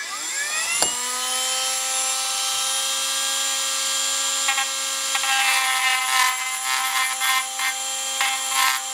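Handheld rotary tool spinning up over the first second to a steady whine. From about halfway through it grinds intermittently as the bit chamfers the sharp edge in the bore of a cam-chain idler gear, relieving the metal where the gear was binding and galling on its shaft.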